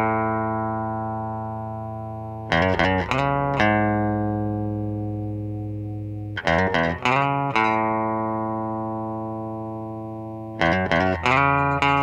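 Instrumental music: a short phrase of quick plucked notes about every four seconds, each ending on a chord that rings on and slowly fades.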